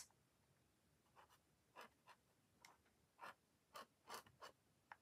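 Faint scratching of a glue applicator's tip drawn along a paper window frame: a run of about seven short scrapes, roughly half a second apart.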